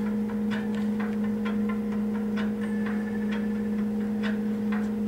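A steady low hum runs throughout, with a fainter higher tone above it. Over it come irregular light clicks and taps as fingers press sponge-cake pieces into a plastic container.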